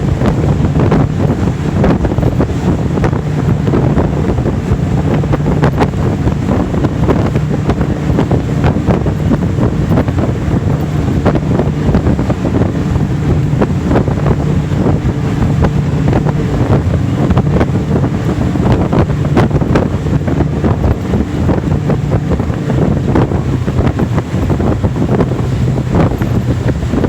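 Twin 200 hp Mercury V6 outboards running steadily with the boat under way, under heavy wind noise on the microphone and water splashing against the hull.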